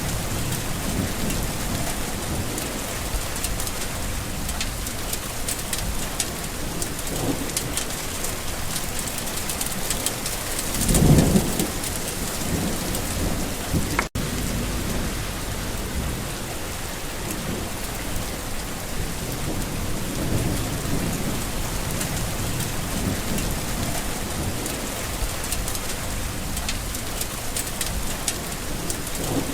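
Steady rain pattering on surfaces, with low rumbling of thunder under it and one louder rumble about eleven seconds in. The sound cuts out for an instant a few seconds later.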